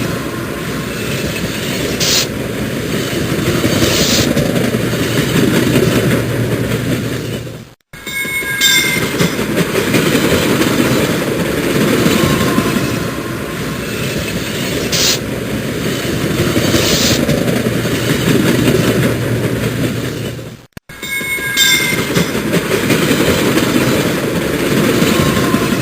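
Metro train running on the rails: a steady rumble with clacking and short high wheel squeals now and then. The sound cuts out for a moment twice, about 8 and 21 seconds in, where the recording loops.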